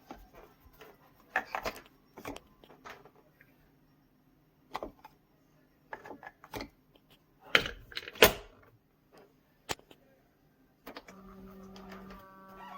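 Scattered clicks and knocks of a Hamilton Beach FlexBrew coffee maker being handled and opened up, the loudest a pair of knocks a little past halfway. About eleven seconds in, a steady electric hum starts.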